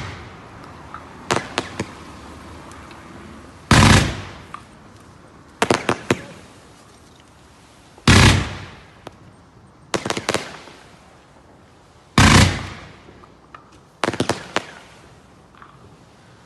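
Fireworks going off: a loud bang about every four seconds, each dying away over a second or so, and each followed about a second and a half later by a short cluster of sharp cracks.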